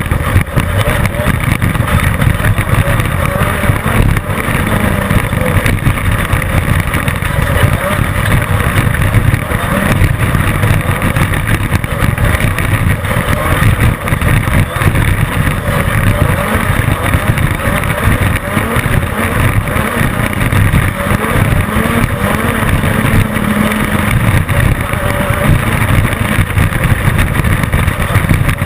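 Class 10 off-road race car's engine running under race load, with a continuous rush of noise over it. A clearer engine note stands out about three-quarters of the way in.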